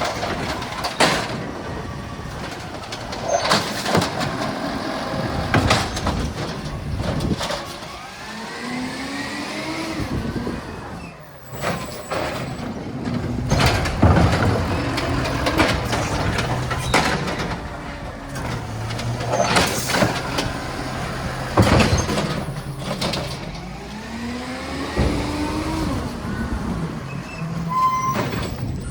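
Recycling collection truck at work: its diesel engine runs steadily and revs up twice, with repeated short sharp hisses and knocks through the pickup.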